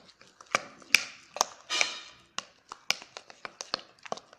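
A spoon stirring a thick paste of rice flour and curd in a plastic bowl, clicking and scraping against the bowl in quick, irregular taps, with one longer scrape about two seconds in.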